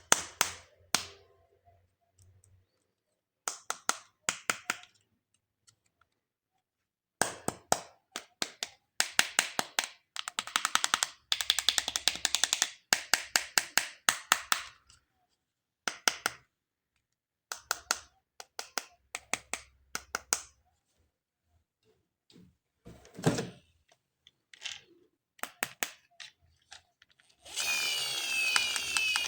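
Sharp clicks and taps of plastic toy parts and packaging being handled, coming in quick clusters with short pauses. A dense crinkling rustle starts near the end.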